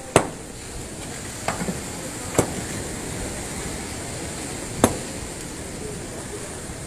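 Demolition blows: three sharp single knocks about two and a half seconds apart, with a softer double knock between the first two, over the steady wash of surf.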